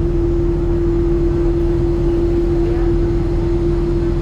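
Parked jet airliner on the apron giving off a steady hum at one constant pitch over a low rumble, as from an aircraft's running ground or auxiliary power.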